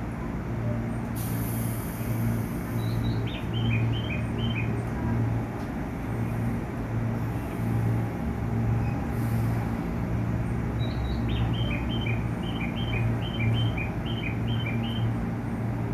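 A JR 211 series electric train standing at the platform, its onboard equipment giving a steady low hum that swells and fades about once a second. Two short hisses of air, one about a second in and one about nine seconds in.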